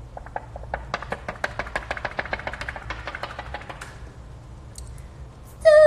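A rapid run of light clicks or taps, several a second, building up and then thinning out over about four seconds. Near the end a voice starts a held, sung note.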